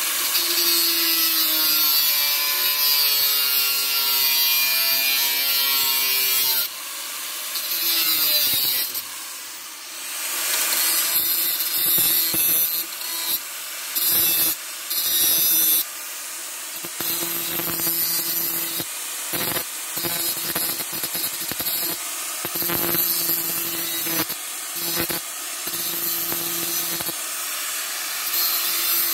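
Handheld electric angle grinder running at full speed and grinding into a metal pipe, a steady motor whine under a loud high hiss of the disc on metal. From about seven seconds in, the sound repeatedly drops back and surges as the disc comes off and goes back onto the work.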